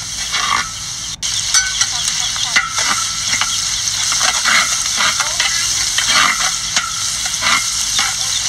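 Sliced shallots and chilli frying in oil in a large wok, sizzling steadily, while a metal spatula scrapes and stirs against the pan.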